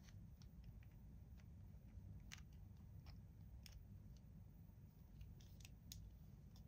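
Near silence over a low hum, with faint, irregularly spaced clicks and taps from small objects such as toys or packaging being handled.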